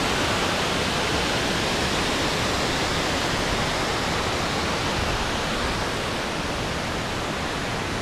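Waterfall water crashing down, a steady, dense rush with no let-up that eases slightly about two-thirds of the way through.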